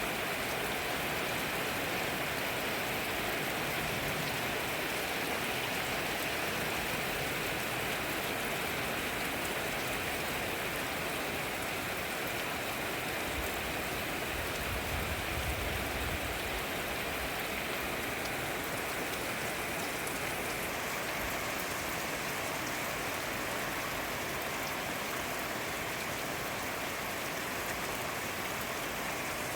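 Steady rain falling, an even hiss of drops on surfaces. There is a brief low rumble about halfway through.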